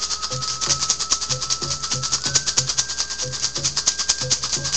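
A hand rattle shaken rapidly and evenly, about seven strokes a second, over a soft low beat. A thin high tone holds under it and steps up in pitch twice.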